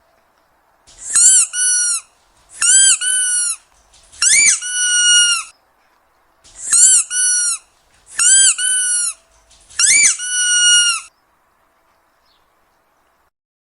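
Squeaky dog toy squeezed six times. Each squeeze gives a short squeak that rises and falls, then a longer, steady squeak. The squeezes come at an even pace, with a slightly longer pause after the third.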